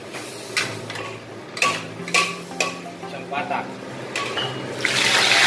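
Metal tongs and spatula clinking against a plate and the wok while a boiled pork hock is lifted, then a loud sizzle bursts from the hot oil about five seconds in as the pork hock goes into the wok to deep-fry.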